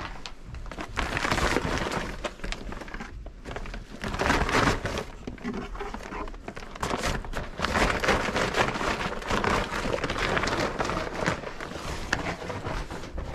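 Irregular rustling and crinkling with scattered small knocks, close to the microphone.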